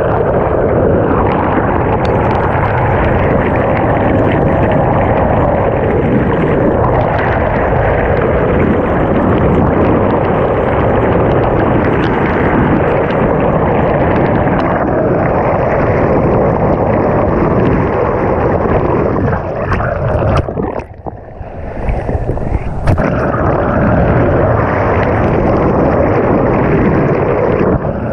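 Water rushing and churning past an underwater camera held alongside a moving boat: a loud, steady rushing noise that dips briefly about two-thirds of the way through.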